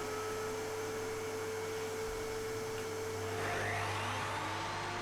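Evolution R255 table saw running with no cut in progress: a steady motor hum and whine, its pitch shifting a little just past three seconds in.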